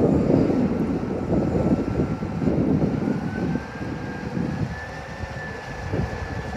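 Caterpillar 12M motor grader's diesel engine running, with an uneven low rumble and a thin whine that rises in pitch about three seconds in and then holds steady.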